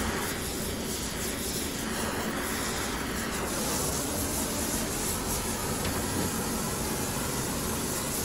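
A steady, loud rushing roar of workshop noise with no clear strikes or rhythm in it.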